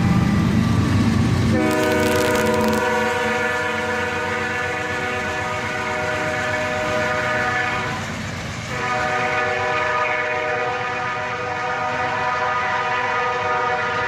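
A low diesel rumble for the first second and a half, then a freight locomotive's multi-chime air horn sounding two long blasts, the first lasting about six seconds, with a short break about eight seconds in before the second.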